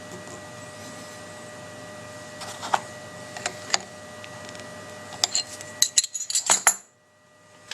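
Small metal tools clinking and tapping in scattered clicks, busiest in the second half, over a faint steady electrical whine. Then the sound cuts out abruptly.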